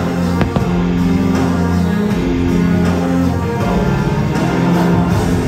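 Loud show-soundtrack music in a rock style with guitar, built on long held low notes that repeat about every second. A couple of faint sharp cracks come about half a second in.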